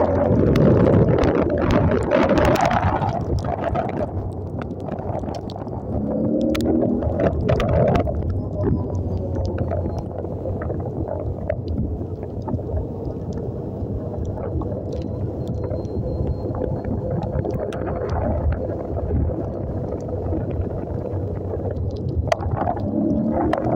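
Motorcycle engines running steadily as the bikes ride through rainwater on a wet road, with tyre spray and wind on the microphone.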